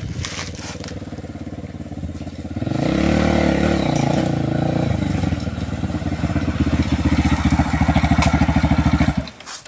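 Yamaha TT-R125 dirt bike's single-cylinder four-stroke engine coming closer, growing louder about three seconds in, its pitch rising and falling as the throttle is worked. It then runs with an even putter close by and cuts off abruptly near the end.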